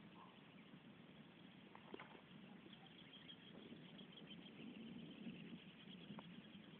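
Near silence: faint countryside ambience with small animal calls, a rapid high chirping trill setting in about three seconds in, and a couple of faint clicks about two seconds in.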